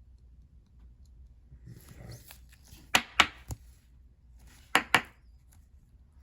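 Trading cards being handled on a tabletop: a soft rustle, then sharp taps, three quick ones and about a second and a half later two more.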